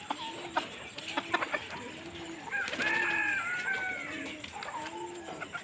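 Domestic chickens clucking: low, short clucks about once a second, with a longer, higher call that falls in pitch around the middle. A few sharp clicks are scattered through it.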